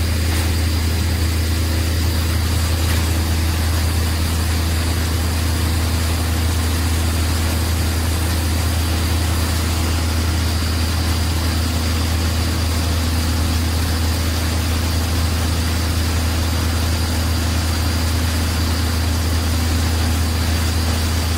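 Heavy machinery engines running steadily, a deep, unchanging drone from a truck-mounted tub wood shredder and a grapple wheel loader working beside it.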